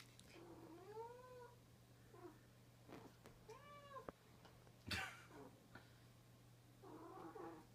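Female cat in heat yowling: a long drawn-out call near the start, a shorter one a few seconds later and a rougher one near the end. A single sharp tap comes between the second and third calls.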